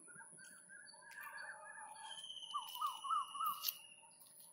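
Birds calling: one bird repeats a short rising-then-falling note three times in quick succession around the middle, among other faint chirps, over a thin, steady, high-pitched whine.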